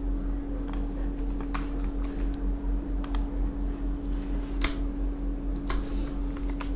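Computer keyboard keystrokes, a dozen or so scattered clicks as a command is typed and entered, over a steady low electrical hum.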